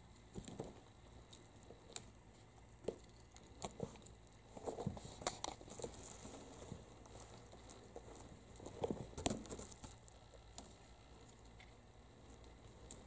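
Kittens' claws scratching and batting at a bamboo blind and a rope basket during play: scattered light clicks, scrapes and rustles, busiest around five and nine seconds in.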